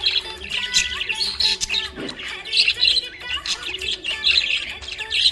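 Small pet parrots chirping and twittering in quick, busy runs of high chirps.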